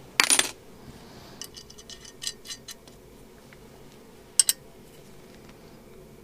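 Small steel hardware clinking on a workbench as a washer and nut are fitted onto the side-stand bolt. There is a short rattle just after the start, a run of light ticks around two seconds in, and two sharp clinks about four and a half seconds in.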